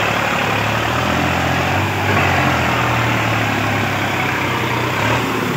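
Sonalika tractor's diesel engine running loud, pulling a loaded trolley through mud. It comes up sharply at the start, then holds a steady pitch.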